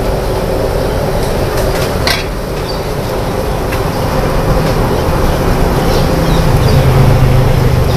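Loud, steady rumble of a street-stall kitchen's burners and machinery, with a steady hum. A sharp metal clink of a ladle against the pot comes about two seconds in.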